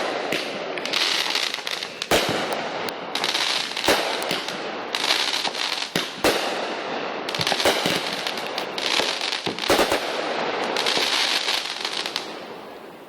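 Consumer fireworks going off: a sharp bang every second or two, each followed by a few seconds of dense crackling, easing off near the end.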